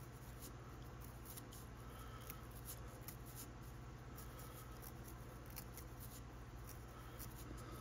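Faint, irregular snips of small scissors trimming the body of a small bass bug, over a steady low hum.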